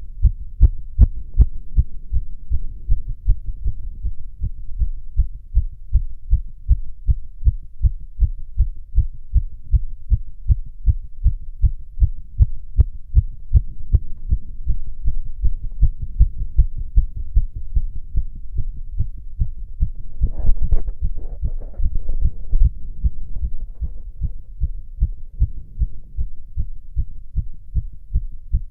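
A man's own heartbeat heard through a stethoscope: fast, regular low thumps with no break, a fast heart rate but otherwise normal. About twenty seconds in, a brief scratchy noise rides over the beats.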